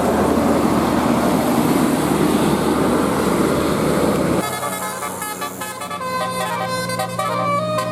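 A bus passing with loud engine and road noise, then about four and a half seconds in a bus's basuri telolet horn suddenly starts playing a melody of quick stepping notes over the engine's steady hum.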